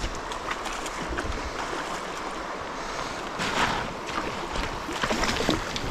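Shallow stream water running, with splashing as a hooked brown trout is brought to the landing net; a louder splash comes about three and a half seconds in.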